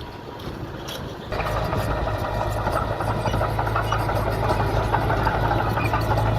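Diesel engine of a construction machine running steadily with a clattering rattle, setting in abruptly about a second in after low wind rumble on the microphone.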